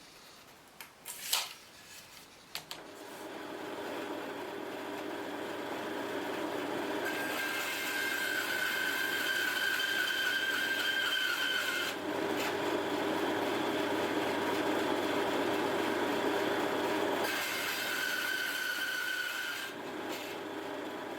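A woodworking power tool starts after a few clicks, builds up and runs steadily on wood. A high steady whine comes in over it twice.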